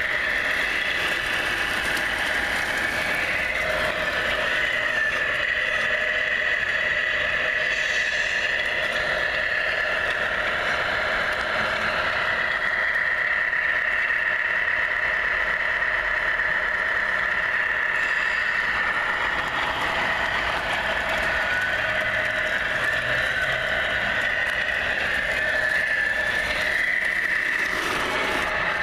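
Radio-controlled scale semi-truck tractor units driving on asphalt: a steady high-pitched whine over a lower hum, with a few slight shifts in pitch.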